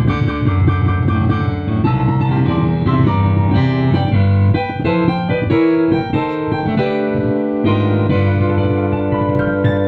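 Digital piano played with both hands: full chords over a strong, steady bass line, the notes changing every fraction of a second.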